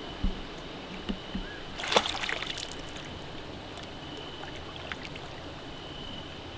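Hooked carp splashing at the surface close to the bank as it is played in, with one burst of splashing about two seconds in and a few lighter splashes and dull knocks around it.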